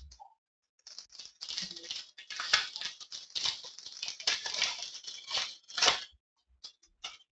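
Foil wrapper of a trading-card pack crinkling and rustling in the hands, in an irregular run of crackles that lasts about five seconds and stops near the end.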